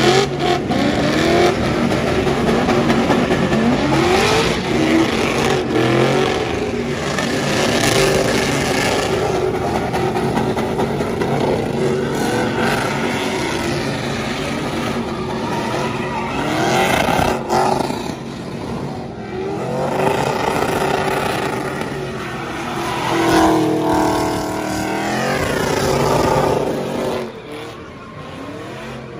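Pickup trucks doing burnouts: engines held at high revs with the tyres spinning, the pitch rising and falling again and again, with one long sweep up and back down near the end.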